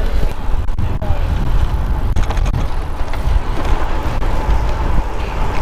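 Wind rush and rumble on the action camera's microphone as a road bike rides fast along the street.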